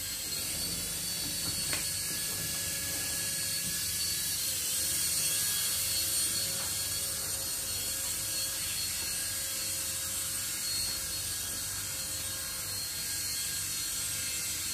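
Steady mechanical whirring with a strong high hiss and a few faint steady tones, unchanging throughout.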